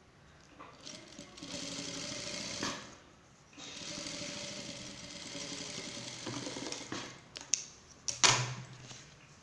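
Industrial lockstitch sewing machine stitching in two runs, a short one and then a longer one of about three seconds, with a brief pause between. A few sharp clicks and one loud clunk follow near the end.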